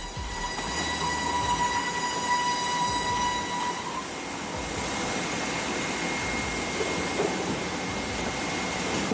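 Sawmill machinery running with a steady high whine over a constant noisy background. The whine stops about four seconds in and a fainter, higher steady tone carries on.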